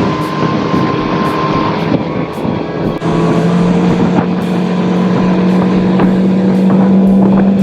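Large Mercury outboard motor driving a fishing boat at speed, a steady engine note that steps up about three seconds in and then climbs slowly as the boat accelerates.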